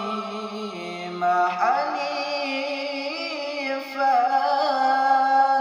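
A man reciting the Quran in a melodic chant (tilawah), drawing out the end of the verse in long, ornamented held notes with a wavering pitch and a rising slide.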